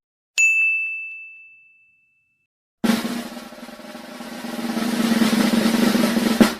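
A single bell-like ding rings out and fades, then a snare drum roll starts about three seconds in and builds louder, stopping abruptly at the end.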